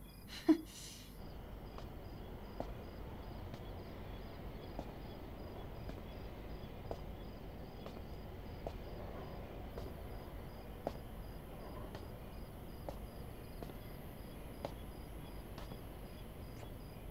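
Slow footsteps on pavement, about one a second, over a faint night-time background with crickets chirping. A single short, sharp thud is the loudest sound, about half a second in.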